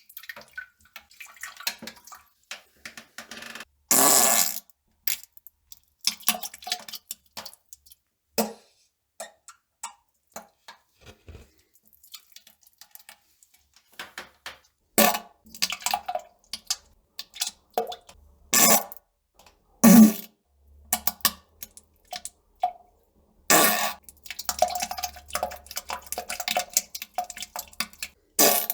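Farting and defecation sounds: a string of irregular short bursts, a few lasting about half a second, some with a low buzzing tone and others wet and splashy.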